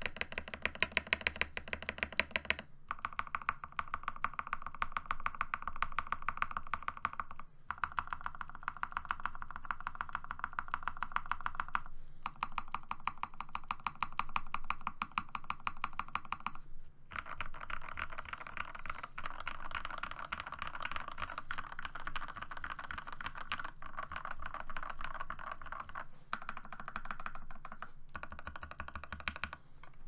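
Fast typing on a modded TM680 mechanical keyboard with hand-lubed, filmed Gateron Pro Milky Red linear switches and dye-sub PBT XDA keycaps: a dense stream of keystroke clacks. It breaks off briefly a few times in the first half.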